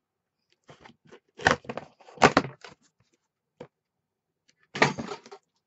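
A cardboard parcel being cut and pulled open: about five short rasps and rustles of cardboard and packing.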